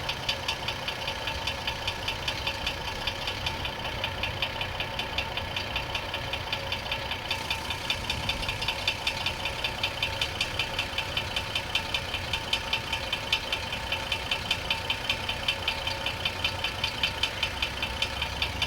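GMC Envoy 4.2 L inline-six idling with a fast, even knock in time with the engine. The owner has ruled out the flexplate, harmonic balancer, belt-driven parts and rod-bearing play, and wonders about a wrist pin or something in the head.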